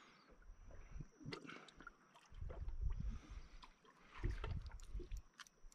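Water slapping and lapping against the hull of a small anchored boat in three low surges, with scattered light clicks and knocks in between.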